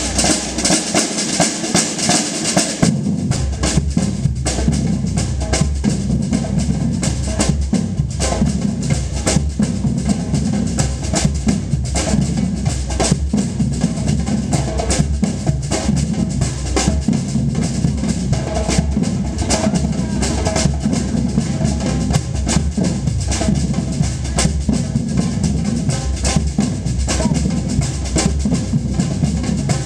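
Batucada-style percussion band playing a continuous, dense drum rhythm, with the deep bass drums coming in about three seconds in.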